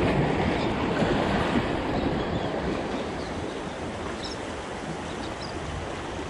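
Small sea waves washing against the concrete blocks of a breakwater, a steady rushing that is a little louder in the first two seconds.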